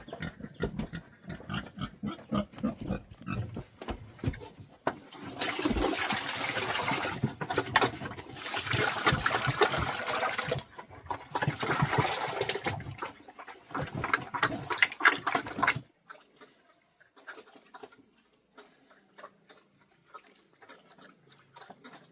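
Pigs vocalising. Irregular short calls give way to long, loud stretches of noise in the middle, which stop abruptly about sixteen seconds in; only faint sounds follow.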